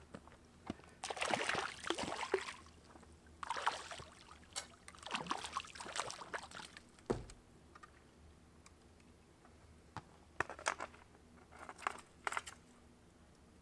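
Water splashing and sloshing in three bursts as a hooked perch is played and landed in shallow water. A dull thump follows about seven seconds in, then a few short sharp clicks near the end.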